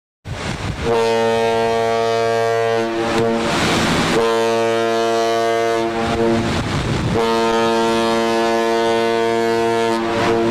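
Ship's horn sounding three long blasts, each about two to three seconds long, with short gaps between them.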